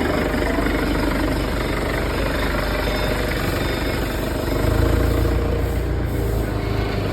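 An engine idling with a steady low rumble that grows louder about two-thirds of the way through, then eases.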